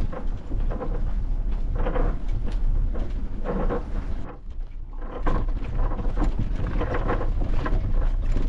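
Wind buffeting the microphone with a steady low rumble, and scattered small knocks and scuffs on top.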